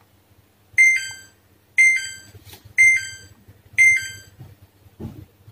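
Samsung front-load washing machine control board's buzzer beeping four times, about once a second, each a short falling two-note beep: an error alert, the board flagging a temperature error because no NTC temperature sensor is connected. A soft knock near the end.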